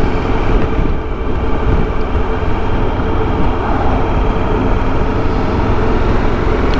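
Motorcycle under way on the road: steady rush of wind over the rider's microphone mixed with engine and road noise, with a steady hum running through it.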